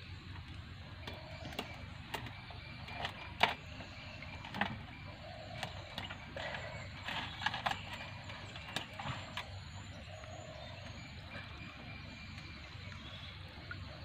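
Irregular knocks and taps from fish and net being handled over a plastic bucket in a wooden dugout canoe, as fish are picked out of a gill net. The knocks come in a scattered run over the first nine seconds or so, the sharpest about three and a half seconds in, over a steady outdoor hiss.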